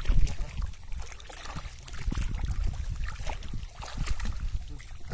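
Shallow water splashing and trickling in short irregular bursts as a cast net is handled and pulled through it, over a low rumble.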